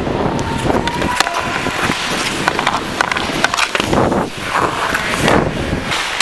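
Ice hockey skate blades scraping and carving on the ice, mixed with sharp clicks of sticks and puck, heard up close from a camera worn by a skating player.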